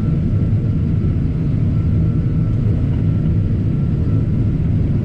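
Steady low rumble of a large farm machine's diesel engine running, with a faint high whine that comes and goes.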